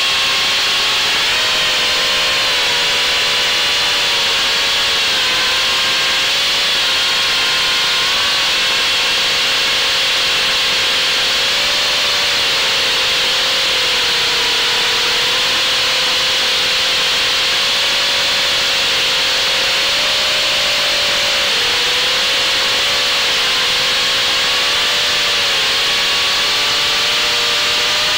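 Brushless motors and propellers of an FPV quadcopter in flight, recorded by its onboard camera: a steady whine whose pitch wavers up and down with the throttle, over a constant hiss.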